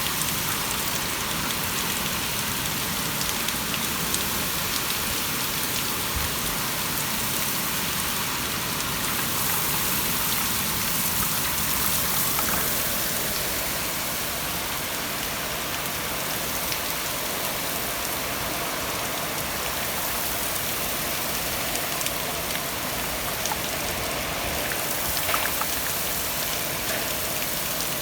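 Heavy rain falling steadily, a dense even hiss with a few individual drop ticks.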